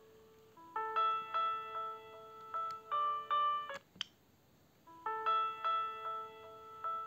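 Siemens Gigaset C595 cordless phone handset playing a polyphonic ringtone melody with a piano-like tone. The phrase runs for about three seconds, breaks off with a short click and gap, and starts over again about five seconds in, looping as a ringing phone does.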